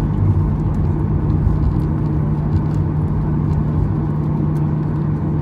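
Cabin noise of a Ryanair Boeing 737-800 on the ground: the jet engines run at low thrust, giving a steady hum over a low rumble that neither rises nor builds.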